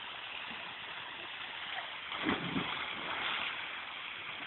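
Steady rush of water falling from a rock waterfall and splashing into a pool, with a short louder moment a little past halfway.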